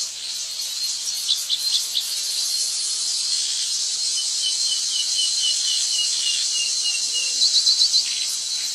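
Steady high-pitched insect chorus, with bird calls over it: a run of about a dozen short, evenly spaced falling notes in the middle, and quick clusters of chirps around a second and a half in and again near the end.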